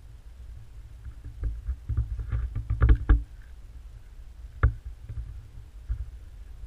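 Camera handling noise: low rumbling and a cluster of thumps and knocks as the camera is moved along a wooden floor, then a single sharp knock near the middle and a softer one later.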